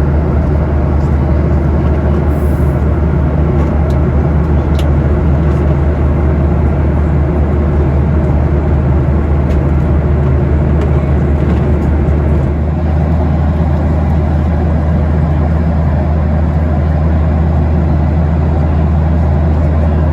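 Steady in-flight cabin drone of a Boeing 737-800: its CFM56 engines and the airflow past the fuselage make a constant, heavy low rumble with a hiss on top.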